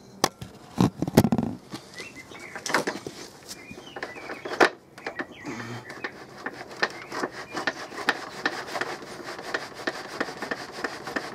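Boilie rolling table: a few sharp knocks as the lid is set down on the bait paste sausages, then from about six seconds in a fast, steady rubbing scrape as the lid is worked back and forth, rolling the paste into boilies.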